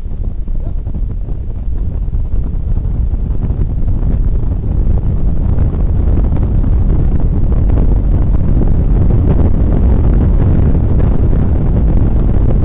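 Cabin noise of a Honda NSX at speed on track: its V6 engine mixed with wind and road noise. It grows louder over the first few seconds as the car accelerates out of a corner onto a straight, then holds steady.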